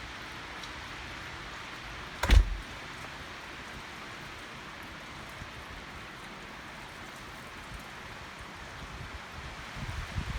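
Steady rush of high wind, with one sudden loud thump about two seconds in and a few low thumps near the end.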